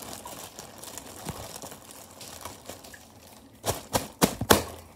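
Plastic bag of sliced bread crinkling as it is handled, with four loud, sharp crinkles in quick succession a little over three and a half seconds in.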